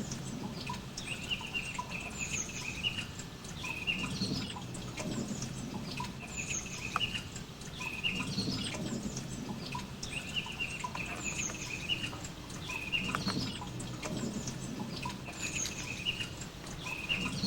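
Birds calling, short high chirps repeating every second or so.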